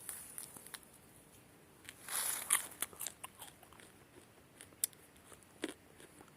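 Scattered small clicks and crisp crunches, with a louder rustling crunch about two seconds in.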